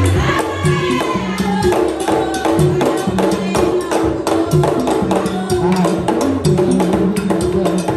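Haitian Vodou ceremonial drumming: hand drums beating a driving rhythm of low tones under a fast, sharp knocking beat, with singing over it near the start.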